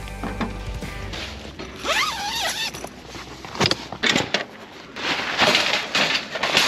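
Camping gear being handled: a brief wavering squeal about two seconds in, a few sharp knocks near the middle, then a stretch of rustling and scraping like a zipper or fabric being pulled.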